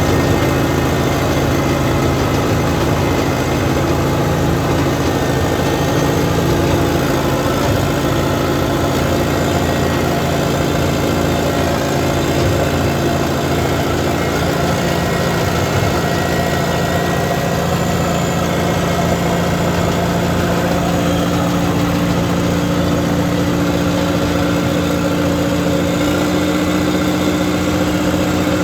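Track loader engine running steadily, its pitch shifting slightly about halfway through.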